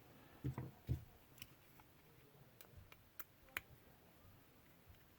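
Sparse, faint clicks and taps of a small Phillips screwdriver and tiny screws against the plastic parts of a Zebco Bullet spincast reel, with two duller knocks in the first second.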